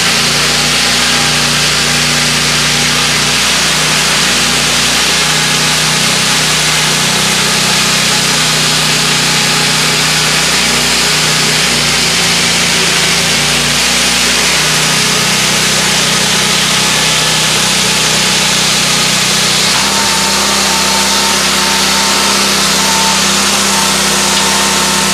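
The 20 hp Honda engine of a Mobil-Cut gas-powered yard saw runs loud and steady under load as its saw chain cuts through a unit of lumber. About 20 seconds in the engine note changes and settles as the bar comes out of the cut.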